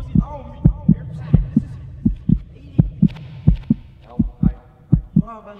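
Heartbeat-like low thumps in pairs, about one lub-dub every 0.7 seconds, with a faint voice-like tone over them.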